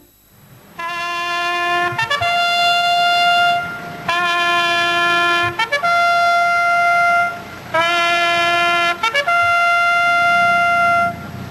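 A solo trumpet plays a slow ceremonial call of about six long held notes. Most of the notes are led in by one or two quick short notes, with brief breaths between them. It is the kind of call played for military honours at a wreath-laying.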